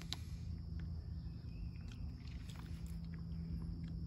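A small dog sniffing and nosing at a berry held out in a hand, heard as faint scattered short sniffs and clicks. Under it runs a steady low rumble with a faint hum.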